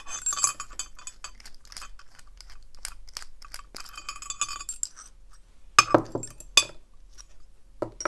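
Small metal parts of a brass padlock clinking and rattling as it is taken apart with a Phillips screwdriver, its shackle and core coming out of the body. There are two sharper knocks about six seconds in.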